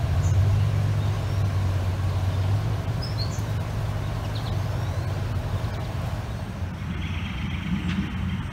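A steady low rumble, with a few faint bird chirps over it.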